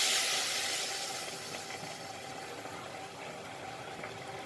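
Water that has just been poured onto toasted rice in a hot pot, hissing and sizzling. The hiss dies down over the first couple of seconds to a quieter steady hiss as the pot settles toward a simmer.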